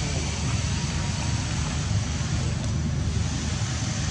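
Steady low rumble with an even hiss above it, unchanging throughout: outdoor background noise with no distinct event.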